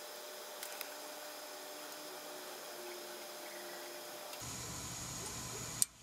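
Gas furnace running with a steady low hiss. About four and a half seconds in, a low hum comes in as the blower starts, switched on by the new fan-and-limit control switch. A single sharp click comes just before the end.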